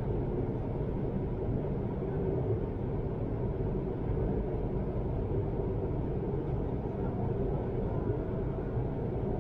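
Steady low rumble of an intercity electric train running, heard inside the passenger car.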